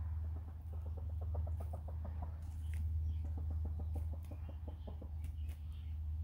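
Ameraucana hens clucking softly in quick runs of short notes, about five a second, in two bouts, over a steady low rumble.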